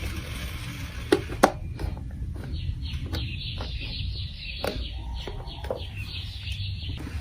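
Hard plastic clicks and clacks, then from about three seconds in a continuous rattling as marbles roll and clatter along a plastic marble run track, with more clicks mixed in, ending suddenly near the end.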